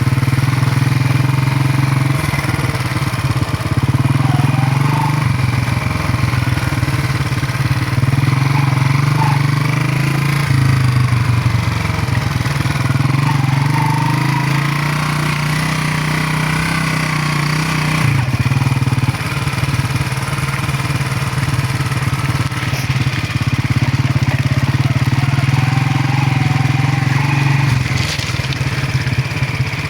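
Motorcycle engine running steadily while being ridden, its pitch stepping up and down several times with changes of throttle and gear.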